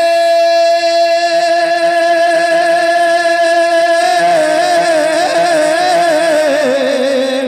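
A man's singing voice, amplified through a microphone, holds one long note in a devotional verse. The note is steady for about four seconds, then wavers through vocal ornaments and slides lower near the end.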